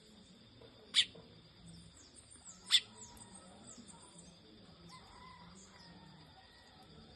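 Two loud, sharp bird call notes about two seconds apart, over faint high-pitched twittering of other birds.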